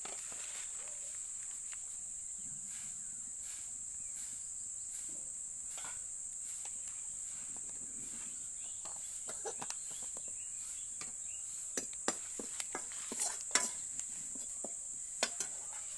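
Steady high-pitched chirring of insects, such as crickets. In the second half, sharp clinks and knocks of a metal ladle and utensils against an iron wok come through.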